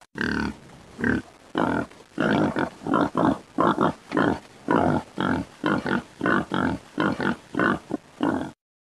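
Pig grunts in a rapid series, about two a second, which cut off suddenly near the end.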